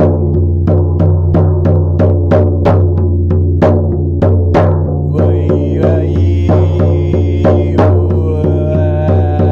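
Shamanic drumming: a drum beaten in a steady rhythm of about three strikes a second over a low sustained drone, with the drone's upper overtones shifting about halfway through.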